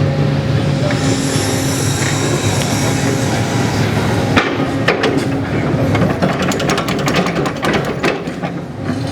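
Road-repair machinery engine running steadily, with a few sharp knocks about halfway and a fast, even run of clicks or knocks over the last three seconds.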